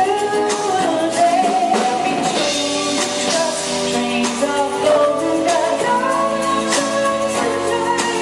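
Live pop-soul band playing a song with singing, held sung notes over guitar and drum kit.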